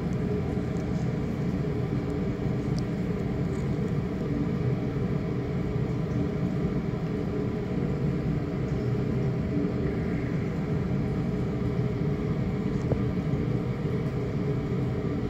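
Steady low mechanical hum with several faint held tones, even in level throughout.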